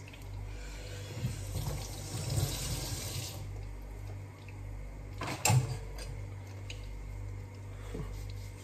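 Kitchen tap running for about three seconds, then shut off, over a steady low hum. One sharp knock comes about five seconds in.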